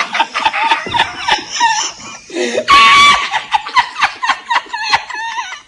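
Men laughing uncontrollably: quick, breathy bursts of laughter, with a loud, high-pitched squealing laugh about three seconds in.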